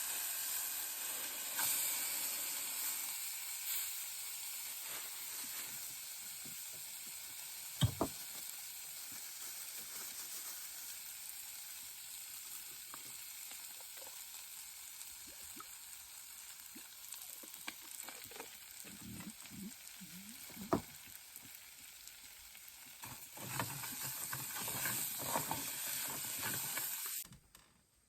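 Fish frying in hot oil, a steady sizzle, with occasional sharp clicks and knocks of a utensil in the pan. The sizzle cuts off suddenly near the end.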